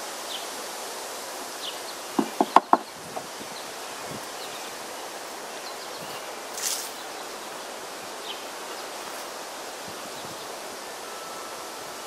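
Four quick, sharp knocks of a metal hive tool against the wooden frames of an open beehive, a little over two seconds in, over the steady hum of honey bees. A short scraping hiss follows about midway.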